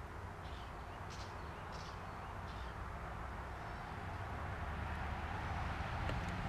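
Several short, high bird chirps over a rushing noise that grows slowly louder.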